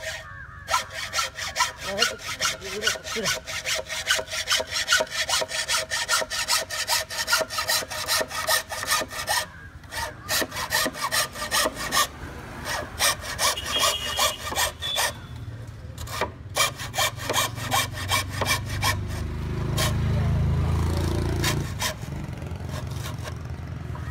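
Hand hacksaw cutting through a green bamboo culm: quick, even back-and-forth strokes with a ringing tone from the blade in the first few seconds, with short pauses. Near the end the strokes thin out and a low rumble swells in the background.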